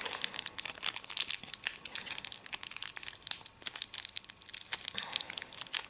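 Thin clear plastic toy bag crinkling and crackling as fingers squeeze and pick at it, trying to tear it open; the sealed bag is hard to open.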